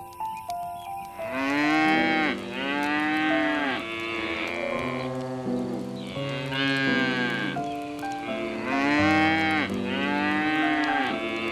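An animal calling: about five drawn-out calls, each about a second long and rising then falling in pitch, with a pause in the middle. Background music with held notes plays under them.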